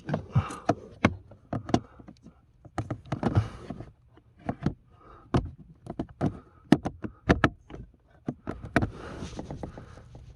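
Irregular sharp plastic clicks and knocks with bursts of rustling as a cabin air filter is pushed and wrestled into its housing in a Ford C-Max, not going in.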